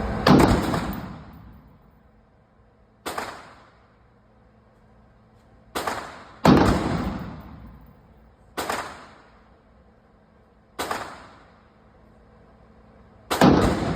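5.56 rifle firing single shots, seven in all, one to three seconds apart, each trailing off with an echo. Three of the shots (at the start, about midway and near the end) are much louder than the rest.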